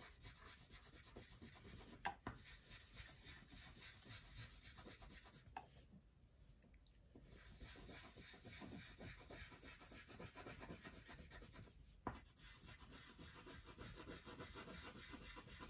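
Felt-tip marker scribbling on paper: faint, quick back-and-forth colouring strokes that pause for about a second near the middle. Two light knocks, about two seconds in and again near the end.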